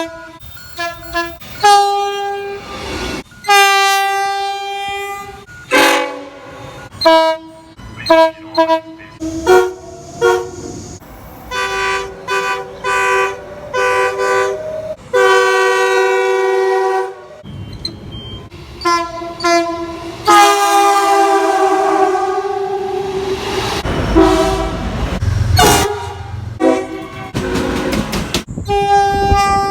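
Train horns sounding one after another in short and long blasts, each a steady multi-note chord; the longest blast comes just past the middle. In the last third the noise of a train going by runs under a horn.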